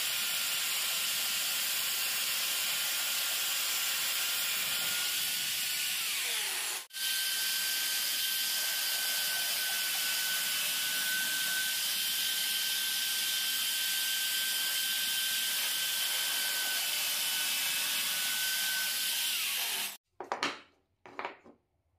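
Bench drill press running with a steady whine and hiss as its bit bores holes in a wooden disc. The motor winds down in pitch about six seconds in and again shortly before the end, then stops. A few short knocks follow.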